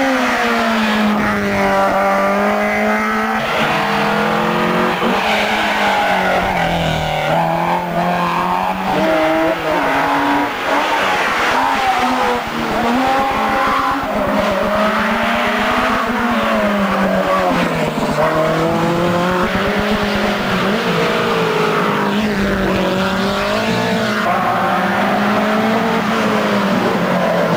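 Racing cars' engines revving hard up a hill-climb course, the engine note repeatedly rising and falling as the cars accelerate, brake and change gear.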